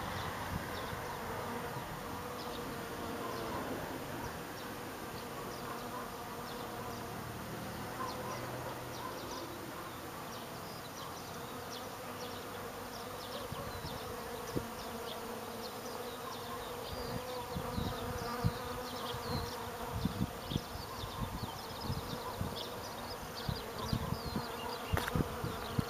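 Honeybees buzzing steadily as they forage on the flowering catkins of a goat willow. Faint high chirps sound throughout, and in the last third low thumps and rumbles come and go.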